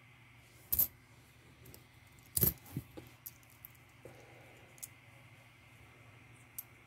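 Pennies clicking against each other and the table as they are handled one at a time: a few short, sharp clicks spread irregularly over several seconds, the loudest about two and a half seconds in.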